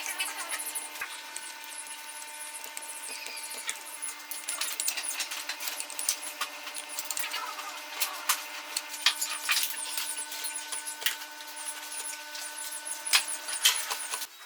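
A small electric power tool running steadily with a constant hum, with scraping and ticking over it; the motor sound cuts off at the end.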